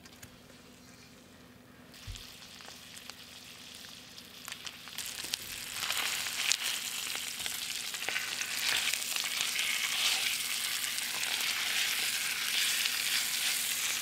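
A whole brook trout frying in hot fat in a stainless steel pan. It is quiet at first; a soft thump about two seconds in begins the sizzle, which grows louder over the next few seconds and then holds steady, with scattered pops and crackles.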